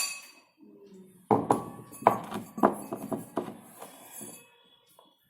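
A sharp, ringing clink of kitchenware right at the start, then a run of a dozen or so knocks and scrapes of a container against a bowl as powder is tipped out into it.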